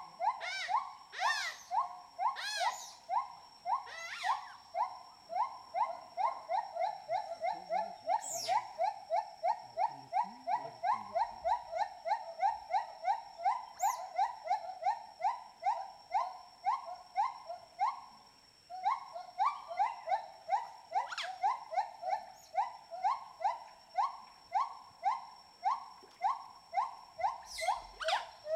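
Rhythmic animal calls: a short rising note repeated evenly about two to three times a second, over a thin steady high drone, with a few sharp high chirps here and there.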